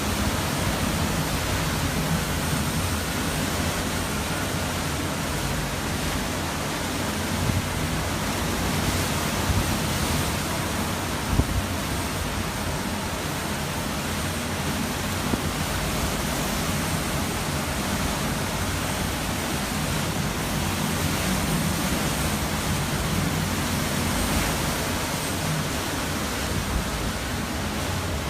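Hurricane wind rushing steadily, with an irregular low rumble and a brief knock about eleven seconds in.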